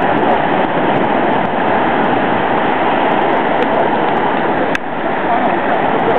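Steady, loud wash of ocean surf breaking on the beach, with a brief click a little before the end.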